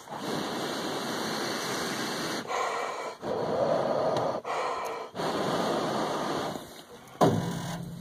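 Air rushing across the microphone in long surges with short breaks between them, then a sharp knock a little after seven seconds.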